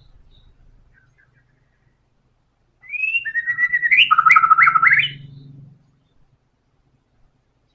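White-rumped shama (murai batu) singing one loud phrase of about three seconds, starting about three seconds in: sliding whistled notes that end in a quick run of short notes.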